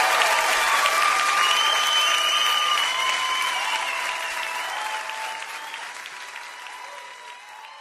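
Audience applauding at the end of a stand-up comedy set, the applause fading out steadily.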